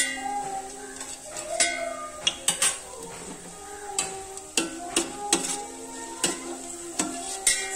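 A metal spoon clinks and scrapes against a steel pan, with sharp taps every half second to a second, as cashews and raisins are stirred frying in ghee. A light sizzle runs underneath.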